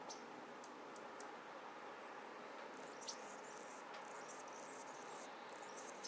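Faint, very high, thin chirping calls of small birds, patchy and continuing through the second half, with one sharp falling note about three seconds in, over a steady background hiss.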